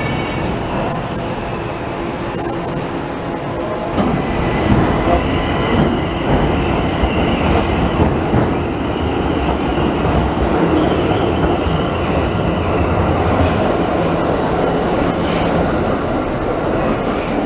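Tokyo Metro Ginza Line subway trains in an underground station. High, wavering wheel squeal for the first few seconds, then the steady, loud rumble and clatter of trains running along the platform, with a couple of sharp clicks near the end.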